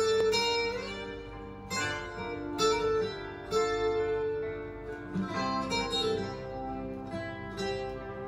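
Recorded acoustic guitar intro, with picked notes struck about once a second and ringing on, played back through Spendor Classic 1/2 hi-fi loudspeakers in a room.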